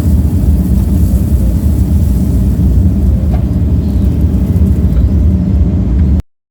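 John Deere 135G excavator's diesel engine running under load with a steady low rumble. It cuts off abruptly near the end.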